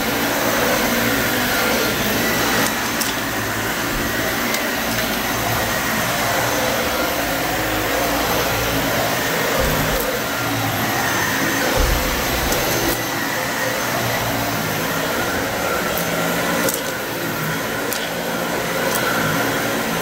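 Dyson Ball Multi-Floor 2 upright vacuum running steadily over carpet, picking up leftover wood chips from a mess test, with a few sharp clicks along the way.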